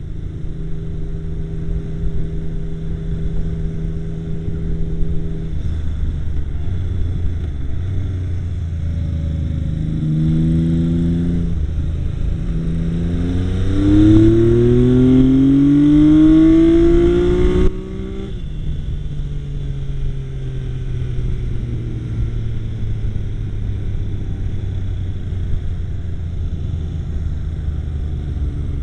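Yamaha XS850 motorcycle's inline three-cylinder engine under way. It holds a steady note, then accelerates hard with its pitch rising in several stepped climbs. The throttle is cut suddenly about 18 seconds in, and the engine note falls slowly as the bike slows.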